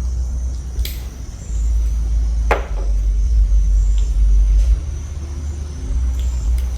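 A loud, uneven low rumble with a few sharp plastic clicks, one about two and a half seconds in being the strongest, as LED bulbs are handled and twisted into tail light sockets.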